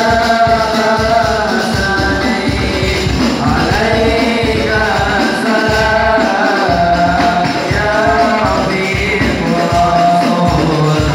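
Hadrah ensemble performing Islamic devotional song (sholawat): young men singing together into microphones over a fast, dense beat on rebana frame drums and a larger bass drum.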